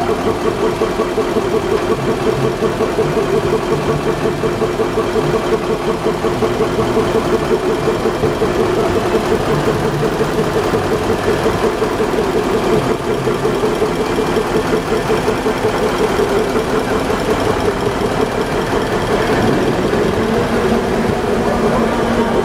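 D301 diesel locomotive's engine idling with a steady, fast pulsing beat. Its note rises near the end as the engine speeds up.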